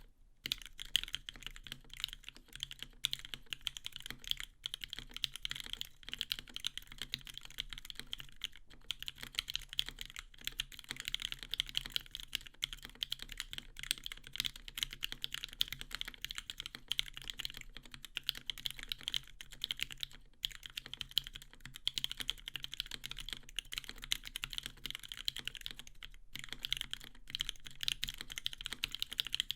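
Continuous fast typing on a Switch Couture Alice mechanical keyboard with an acrylic case and plate, NovelKey Cream linear switches lubed with Krytox 205g0 and filmed, and GMK Camping keycaps: a dense run of keystroke clacks with a few brief pauses.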